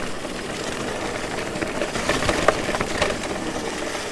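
Santa Cruz Bullit e-mountain bike rolling over a rough, rooty trail: steady tyre and trail noise with knocks and rattles from the bike, the loudest knock about halfway through.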